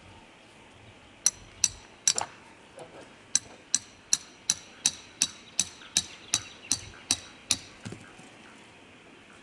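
Hammer driving a metal tent peg: a steady run of about seventeen ringing metal-on-metal strikes, roughly three a second, starting about a second in and stopping near the end.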